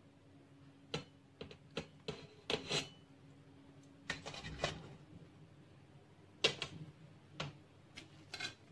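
Metal tongs clicking and clinking against a perforated stainless-steel steamer tray as steamed buns are lifted out, in short, irregular taps.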